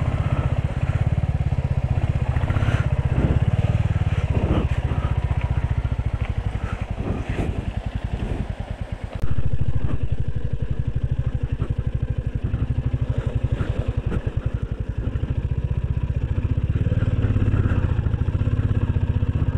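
Motorcycle engine running at low road speed, with a steady train of evenly spaced exhaust pulses; it gets louder suddenly about nine seconds in.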